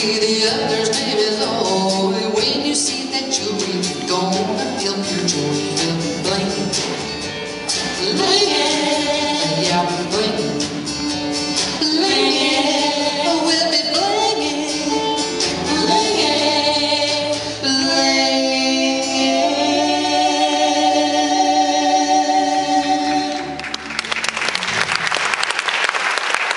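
Live singing of an advertising jingle with backing music and a steady beat, ending on a long held chord; the audience then breaks into applause near the end.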